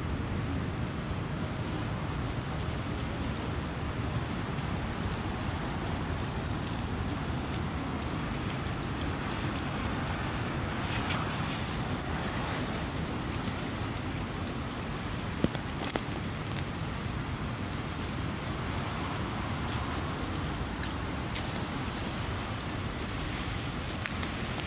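Street ambience in heavy snowfall: a steady low traffic rumble under a fine, crackling patter, with one sharp click about fifteen seconds in.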